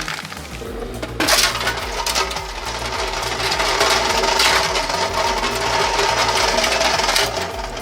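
Industrial shredder tearing through material: a dense clatter of cracks and rattles that gets suddenly louder about a second in.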